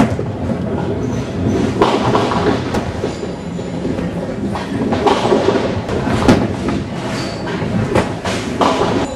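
Nine-pin bowling balls rolling down several lanes at once: a continuous rumble broken by sharp knocks every second or so as balls land and strike pins.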